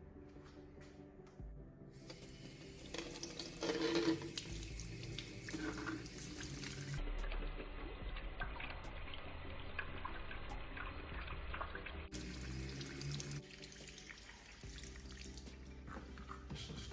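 Water running from a tap into a sink, starting about two seconds in.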